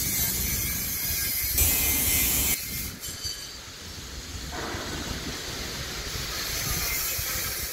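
Drum roasting machine running: a steady mechanical rumble with a hiss over it. The hiss swells to its loudest about two seconds in, drops away near the three-second mark, and builds again later.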